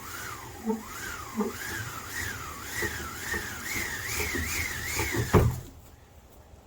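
Live theatre wind sound effect: a whistling howl that swings up and down in pitch over a rushing hiss, the swings getting quicker and higher. It stops with a thump about five seconds in.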